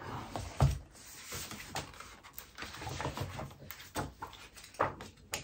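Pages of a knitting stitch dictionary being turned and handled: irregular paper rustling with a few soft thumps and flicks.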